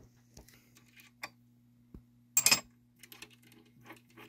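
Small metal tools clinking and rattling, with one louder clatter about two and a half seconds in, as a center drill is picked out and fitted into the lathe's Jacobs drill chuck.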